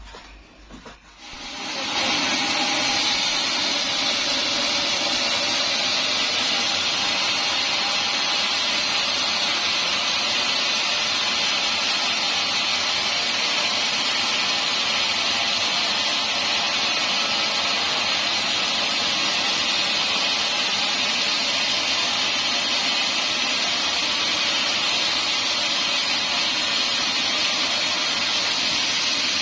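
Band sawmill sawing dried teak, a steady, even machine noise that comes up sharply about two seconds in and then holds.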